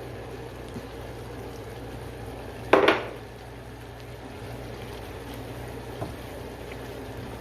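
Garlic and honey sauce with chicken, shrimp and vegetables simmering and bubbling steadily in a pot on the stove. About three seconds in there is one loud clank of a utensil against the pot.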